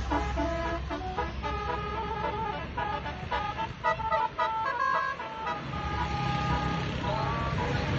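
Basuri 'telolet' multi-tone bus air horn playing a quick melody of stepped notes, over the low rumble of a bus engine.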